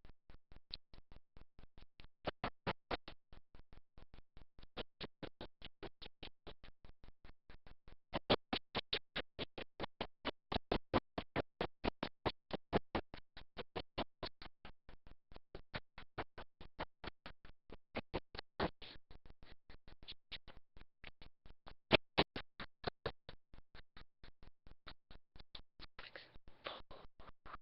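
A steady, rapid ticking sound effect, about four sharp clicks a second, with some runs of clicks louder than others.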